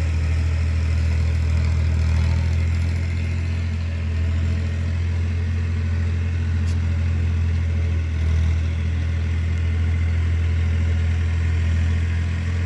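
Tractor engine running steadily at an even pitch, a deep low hum with no revving up or down.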